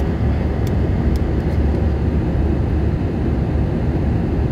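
Airbus A319 cabin noise in the climb after takeoff: a steady, deep rumble of the jet engines and airflow heard inside the cabin.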